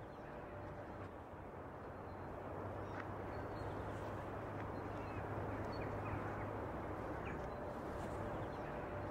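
Faint outdoor winter ambience: a steady wash of background noise with a low hum, and a few short bird calls now and then.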